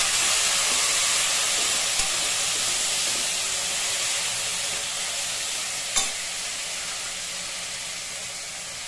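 Chopped citron pieces sizzling in hot sesame oil in a pressure cooker as a metal spoon stirs them. The sizzle fades gradually, with a light click of the spoon against the pan about two seconds in and a louder knock about six seconds in.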